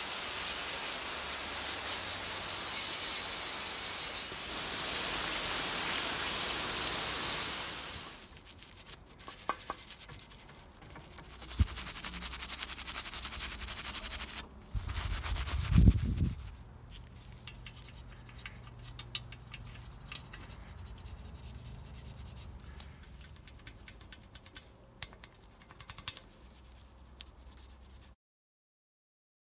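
Gloved hands scrubbing a steel Colnago Master bicycle frame with a cloth and bristle brushes. Steady hard rubbing runs for about the first eight seconds, then gives way to quieter, scratchy brushing with two knocks in the middle. The sound cuts off suddenly near the end.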